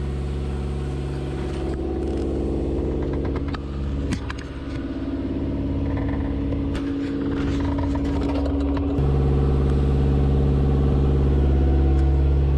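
A sailboat's inboard diesel engine running steadily under way, with a few light clicks and knocks about midway, and a step up in level about two-thirds of the way through.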